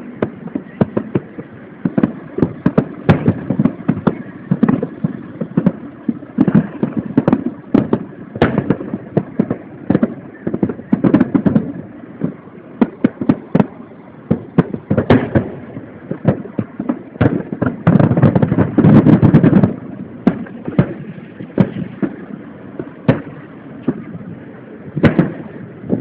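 Aerial firework shells bursting in quick succession, many sharp bangs, some overlapping, building to a dense, almost unbroken barrage about two seconds long roughly two-thirds of the way through. Heard through a mobile phone's microphone, which cuts off the top of the sound.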